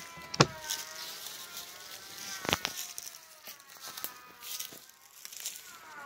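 Honeybees buzzing close around the hives, their hum rising and falling in pitch as they fly past. Two sharp knocks, about half a second and two and a half seconds in.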